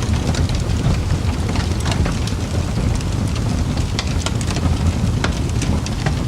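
Wood fire crackling in a fireplace: a steady low rumble of flames with frequent irregular pops and crackles.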